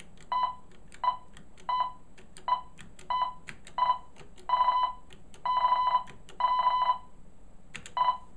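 Keys on an East German speech/morse generator's keypad clicking as they are pressed, each press answered by an electronic beep, about ten in all. Most beeps are short; three in the middle are held for about half a second.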